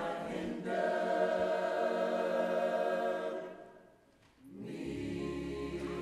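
Church choir singing a held chord with no accompaniment; the voices fade out about three and a half seconds in. About a second later the choir comes back in over a steady low bass.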